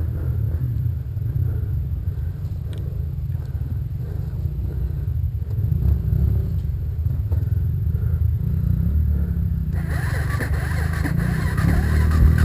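Off-road vehicle engine running at low revs with a steady low rumble as it crawls along a trail. About ten seconds in, a brighter, louder layer comes in over it.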